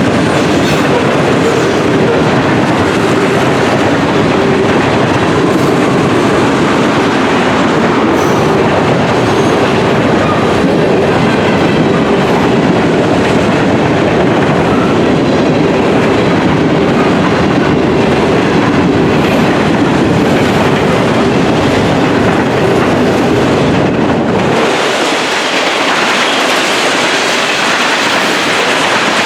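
Freight train cars rolling past close by, a loud steady clatter of wheels on the rails. About 25 seconds in, the deep rumble drops away and the sound turns brighter and thinner.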